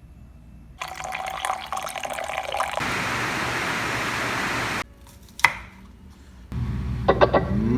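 Water from a tap running into a sink or container, cut into short pieces: a steady splash, a sharp click, then a vessel filling with a pitch that rises near the end.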